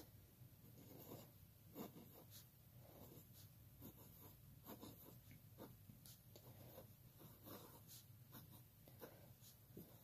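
Faint scratching of a 0.7 mm mechanical pencil lead writing on scrap paper, in short irregular strokes.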